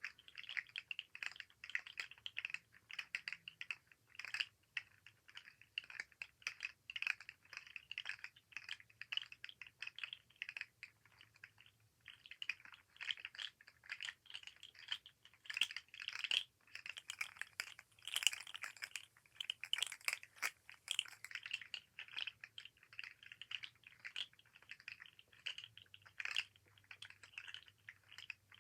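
Articulated fidget slug toy being handled, its jointed segments clicking and rattling against each other in quick, uneven runs of clicks, with a brief lull about twelve seconds in.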